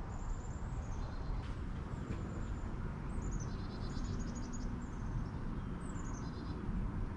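A songbird singing short phrases of high notes that step downward, several times, over a steady low background rumble.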